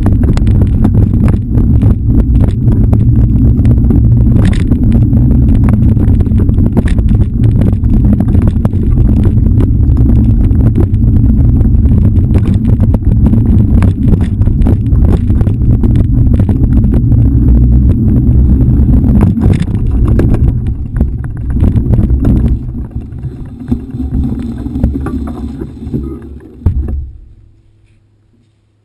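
Wind buffeting and rumbling on an action camera carried by a mountain biker riding a dirt singletrack, with rattles and knocks from the bike over the rough trail. About 22 seconds in it breaks up into scattered knocks as the ride slows, and it cuts off shortly before the end.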